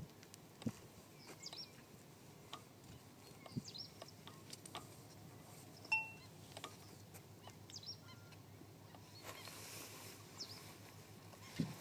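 Faint outdoor ambience with scattered distant bird calls, one short clear note about midway, and a few soft knocks.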